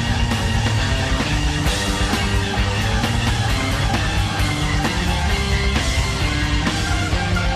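Rock band playing live, an instrumental passage with electric guitar over bass and drums.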